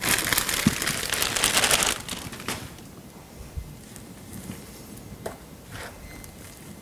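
A crinkling, crackling rustle of dry sphagnum moss and its plastic bag being handled for about two seconds, as a handful of moss is taken out. After that come only soft, scattered rustles and small ticks as the moss is pressed in around the roots.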